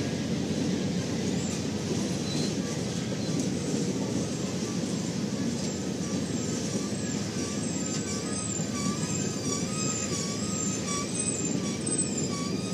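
Passenger cars of a long train rolling past at track level, a steady rumble of wheels on the rails. From about five seconds in, a high, wavering whine rides over it.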